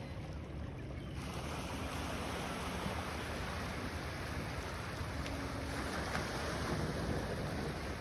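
Small lake waves washing steadily onto a pebble shore, with wind rumbling on the microphone.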